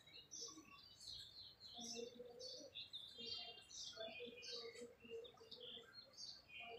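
Faint chirping of small birds: many short, high chirps scattered throughout, with some softer, lower notes among them.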